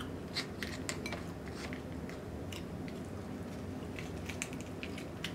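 Cooked lobster tail handled by hand, with its shell being pulled apart: scattered small clicks and crackles.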